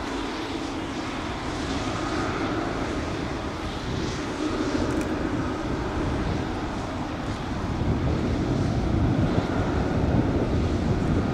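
Boeing 777-200F freighter's twin GE90 turbofan engines at taxi power: a steady jet rumble and hiss that grows louder near the end as the aircraft comes closer.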